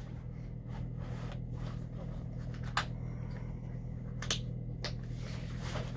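Handling sounds as a PAPR battery pack's waist belt is put on and buckled at the front: light rustling of the belt webbing and a few sharp clicks from the buckle, the loudest about three seconds in.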